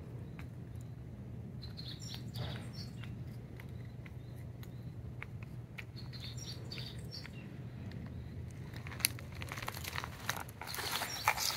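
Small birds chirping now and then over a steady low hum, with a spell of rustling and crackling near the end that is the loudest sound.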